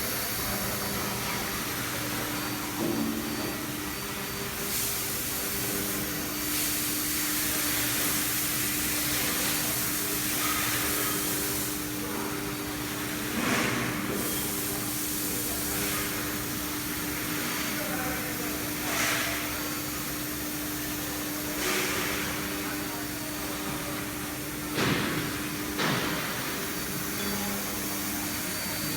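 A 5-axis CNC router machine running: a steady machine hum with a hiss, and brief louder swells every few seconds.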